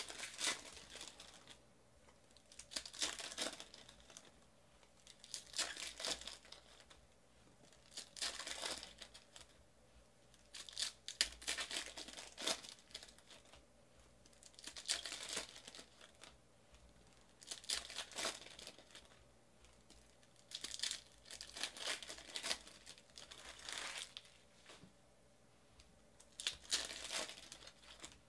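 Foil trading-card pack wrappers being torn open and crinkled by hand, in short bursts every two to three seconds.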